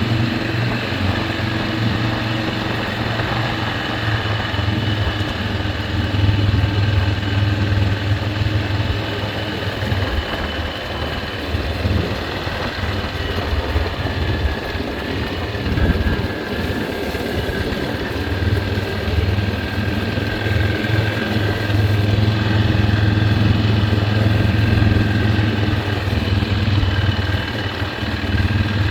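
Riding lawn mower engine running steadily, its low hum easing a little partway through and building again toward the end.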